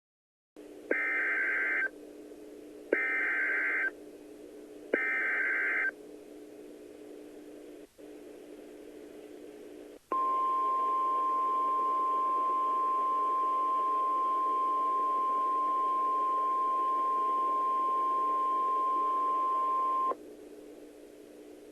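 Emergency Alert System SAME header: three short screeching data bursts about two seconds apart, then, after a pause, the single-pitched NOAA Weather Radio warning alarm tone held steady for about ten seconds, over a constant hiss and hum of radio reception. It marks the start of a tornado warning broadcast.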